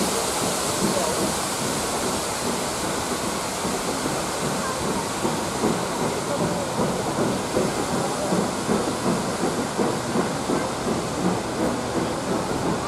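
Steam-hauled train of passenger coaches pulling out, wheels clattering regularly over the rail joints, over a steam hiss that fades away during the first half as the locomotive draws off.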